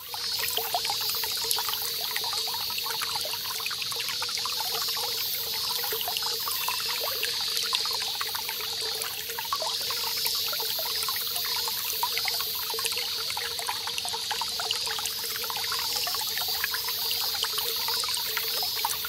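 A small stream trickling, with cicadas singing steadily behind it.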